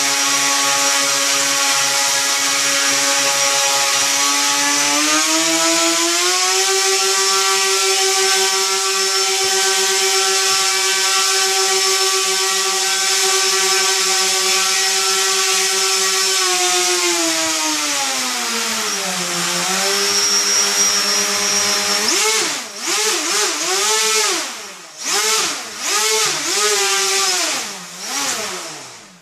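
Electric motor spinning an 8-inch carbon fiber propeller under changing throttle: a steady buzzing whine that steps up in pitch about five seconds in and holds, sinks low around seventeen to nineteen seconds, then surges up and down quickly several times as the throttle is worked.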